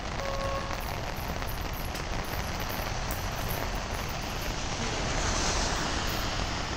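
Steady rushing noise of heavy rain and road traffic, with a short horn beep near the start.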